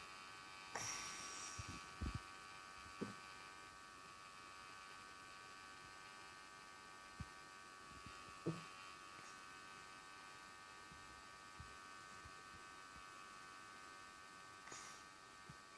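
Portable nebulizer running with a faint, steady high-pitched hum, with a few soft knocks and taps now and then.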